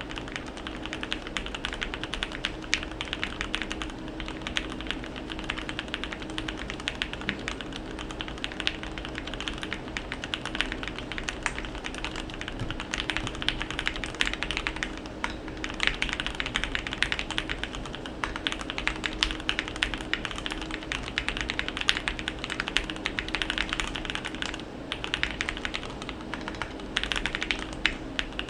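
Continuous fast typing on a modded Keychron Q1 mechanical keyboard with lubed Gateron Milky Yellow linear switches: a dense run of keystroke clacks with a few brief lulls.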